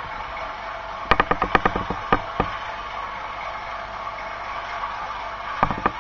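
Sound-fitted OO gauge model of a Class 37 diesel locomotive running slowly, its recorded diesel engine sound droning steadily from the model's small speaker. A quick run of sharp clicks comes about a second in and lasts about a second and a half, and a few more come near the end.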